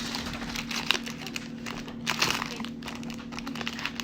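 Crinkling and rustling of a trading-card pack wrapper being handled and opened, in irregular bursts.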